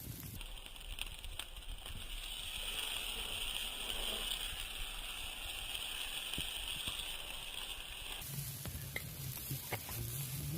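Chicken sizzling over an open fire: a steady hiss that starts just after the beginning and cuts off suddenly about eight seconds in, with a few faint clicks.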